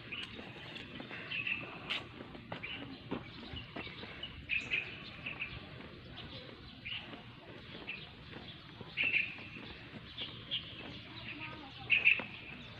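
Small birds chirping in short calls every second or two over a faint outdoor hiss, with the loudest calls near the end.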